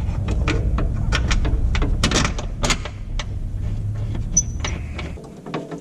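Metal suspension parts knocking and clicking irregularly as a control arm end with loose bushings is worked into a steering knuckle, over a low handling rumble that drops away near the end.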